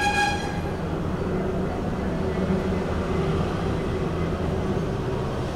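Steady low background rumble, with a short high-pitched tone in the first half second.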